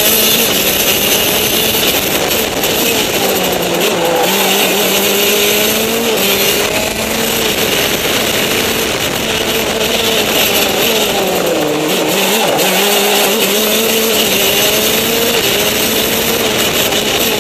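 Go-kart engine running hard on track, its pitch rising and falling as the revs change through the corners, dipping sharply about twelve seconds in and climbing again. A steady rushing hiss of wind sits over it.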